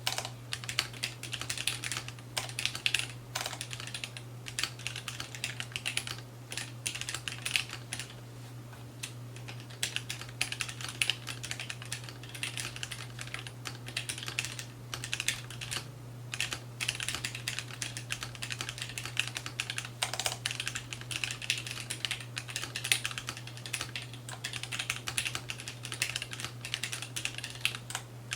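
Continuous typing on a Keebio Quefrency split mechanical keyboard with lubed Gateron Black linear switches (black Cherry top housings, Tribosys 3204 lube) and PBT keycaps. Keystrokes come in quick runs with a few short pauses.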